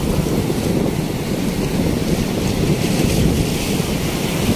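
Sea surf breaking and washing ashore in a steady rush, with wind buffeting the microphone.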